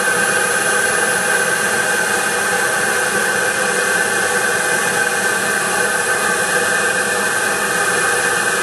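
SWB Mamba model jet turbine in a radio-controlled F-16 running steadily on the ground: a loud, even rush of jet noise with a constant high-pitched whine.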